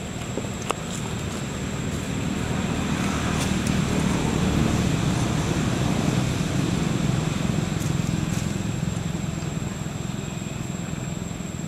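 A motor vehicle's low engine rumble, swelling over the first few seconds and then slowly fading.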